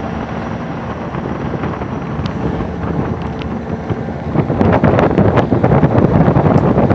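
Road and engine noise of a moving vehicle heard from inside, with wind buffeting the microphone at the side window. It turns louder and gustier, with crackling, about four seconds in.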